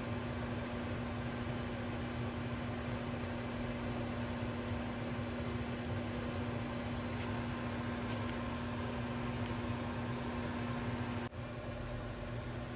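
Microwave oven running: a steady hum over the whir of its fan. About eleven seconds in, the hum cuts off sharply and the fan whir goes on.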